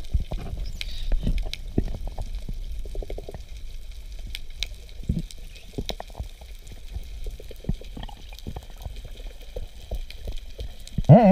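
Underwater sound picked up by a camera submerged in the sea: a steady muffled low rumble with many scattered sharp clicks and crackles. Right at the end comes a short, loud, muffled pitched sound that wobbles up and down in pitch.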